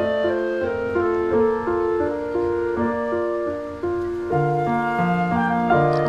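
Instrumental background music with a gentle keyboard melody of steady, evenly paced notes; a lower part comes in about four seconds in.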